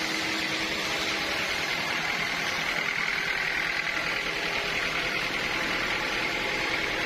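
Sawmill machinery running steadily: a constant mechanical drone with a high whine held at one pitch.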